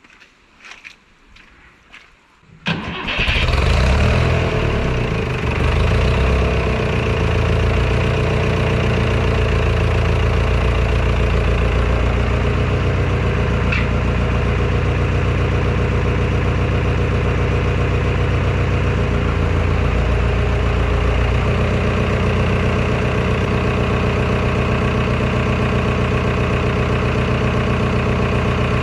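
A few light knocks, then an engine starts about two and a half seconds in and settles into a steady idle.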